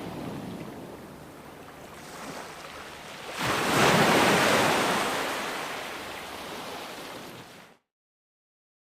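Ocean surf washing on a beach. A wave breaks suddenly about a third of the way in, is loudest just after, then washes out and fades. Near the end the sound cuts off abruptly to dead silence.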